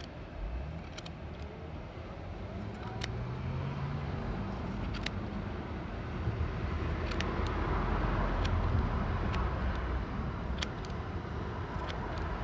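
Small scissors snipping through beard hair, a few light clicks a second or two apart, over the low rumble of passing road traffic that swells toward the middle.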